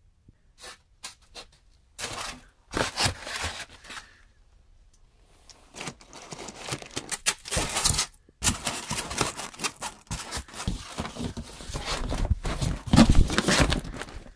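Handling noise from packing a parcel: polystyrene foam sheets and a cardboard box shifted, rubbed and scraped. A few light clicks at first, then irregular stretches of dense noise, busiest and loudest in the second half.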